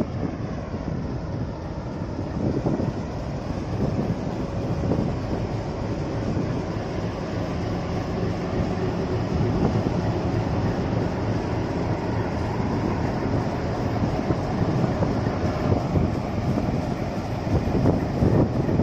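Train running on the rails, a steady low rumble that carries on without a break.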